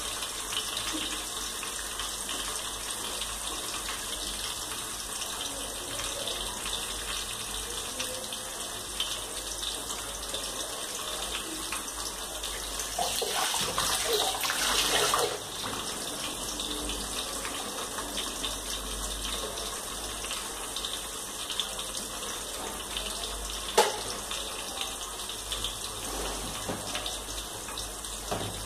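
Steady rush of water running from a kitchen tap, louder for about two seconds around the middle, with one sharp click near the end.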